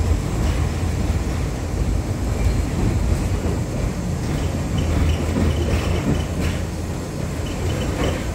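LVS-86K tram running along the track, heard from inside the passenger car: a steady low rumble of wheels and running gear with a few irregular clacks. A faint high-pitched tone comes and goes in the second half.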